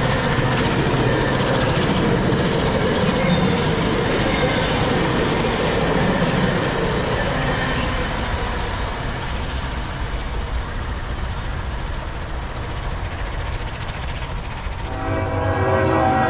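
Train passing with steady wheel-on-rail noise and low rumble that gradually fades as it moves away. Near the end a diesel locomotive horn starts sounding a sustained chord.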